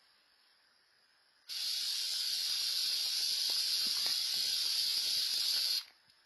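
A loud, steady hiss that starts suddenly about a second and a half in and cuts off sharply some four seconds later.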